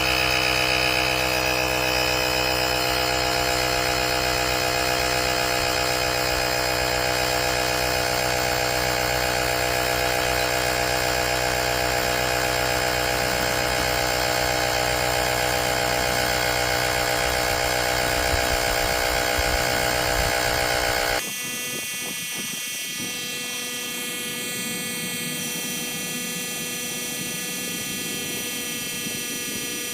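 VACASSO cordless tire inflator's electric compressor running steadily, pumping up a car tire toward its 36 psi auto shut-off. About two-thirds of the way through, the sound changes suddenly, becoming a little quieter with less low rumble, and then carries on steadily.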